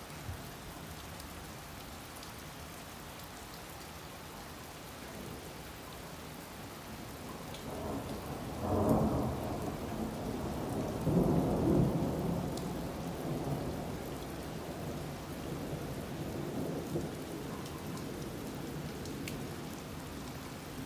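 Steady rain falling during a supercell thunderstorm, with a long roll of thunder that builds about a third of the way in, peaks twice, then rumbles away over several seconds.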